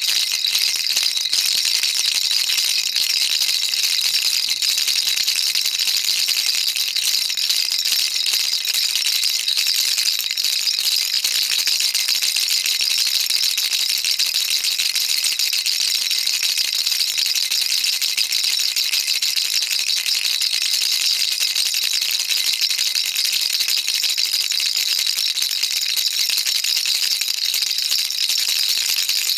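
Baby rattle shaken continuously in a fast, even rhythm, its beads clattering in a dense high-pitched stream.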